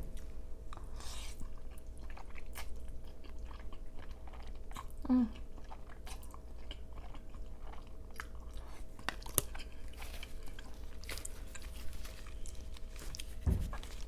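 Close-miked chewing of creamy crawfish pasta: wet mouth clicks and smacks, with a brief pitched sound about five seconds in and a low thump near the end.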